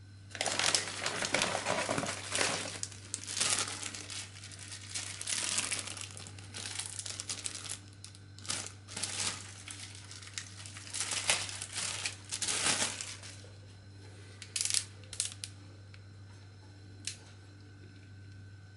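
Plastic packaging, a grey poly mailer and a small clear plastic bag, being handled and crinkled by hand in loud bursts of rustling for about thirteen seconds. A few short clicks follow near the end.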